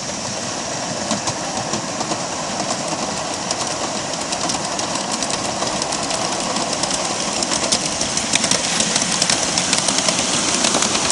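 A 7¼-inch gauge ride-on miniature train, with an orange diesel-outline switcher hauling riding cars, rolls past. It makes a steady running noise with quick, irregular clicking of wheels over the rail joints, and grows louder as it comes closer.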